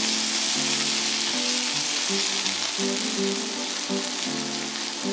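Asparagus and cherry tomatoes sizzling in hot oil in a frying pan, a steady hiss. Background music plays along with it.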